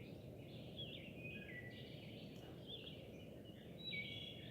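Faint songbirds chirping and warbling, several short phrases overlapping, over a steady low background rumble.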